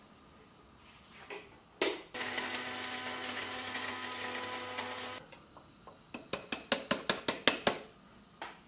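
Small electric blade grinder running for about three seconds as it grinds chocolate pieces, then cutting off. A quick run of sharp clicks and taps follows.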